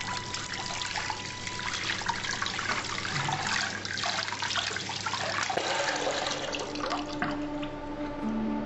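Tap water running into a bathroom sink, splashing over hands as a razor is rinsed under it.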